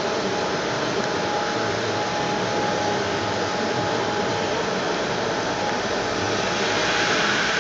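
AMADA HFA 330 automatic band saw running: a steady whirring machine noise with a thin steady tone through it, growing slightly louder near the end.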